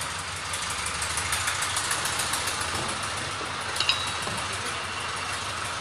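Mobile crane's engine running steadily at idle, with a short high metallic clink about four seconds in.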